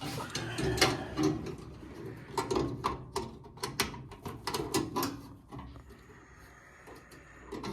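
Hands and tools working on a gas furnace being taken apart: irregular clicks, knocks and rattles of metal panels, parts and screws, dying down over the last couple of seconds.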